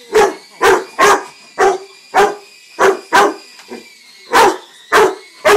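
Rottweiler barking at a small remote-control toy helicopter: a steady run of about eleven barks, roughly two a second.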